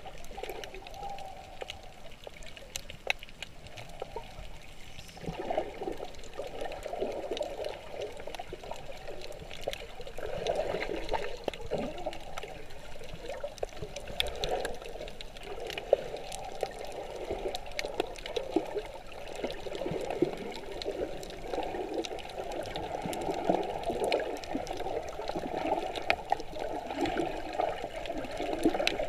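Muffled underwater sound of water moving around a submerged camera: an irregular, swelling sloshing and gurgling with many small scattered clicks.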